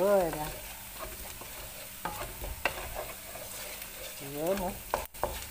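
Minced garlic and onion sizzling in hot oil in a nonstick pan, stirred with a wooden spatula that scrapes and knocks against the pan a few times.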